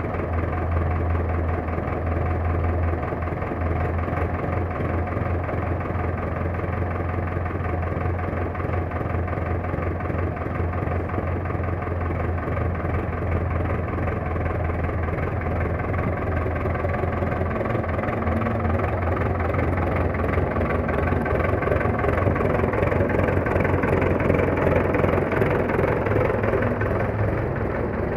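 Fordson tractor engine idling steadily, with a strong low beat, just after a cold start following three months standing unused through winter. It gets a little louder about three-quarters of the way through.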